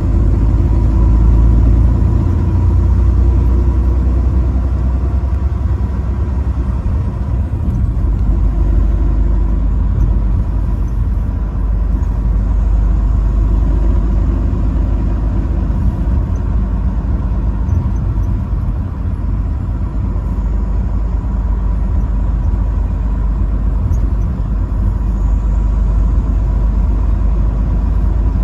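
Steady low rumble of a road vehicle on the move, a little heavier for the first few seconds; no horn is sounded.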